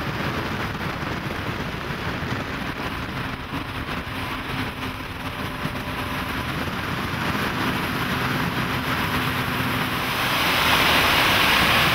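A center-console boat with twin Yamaha F115 four-stroke outboards running at speed, the engines' steady hum under a constant rush of wind and hull spray. The spray hiss grows louder about ten seconds in.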